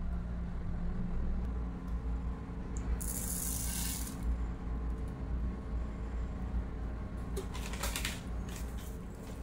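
Mustard seeds sprinkled into hot oil in a non-stick pan: a brief sizzle about three seconds in, then a few scattered crackles near the end as the seeds start to pop, over a steady low hum.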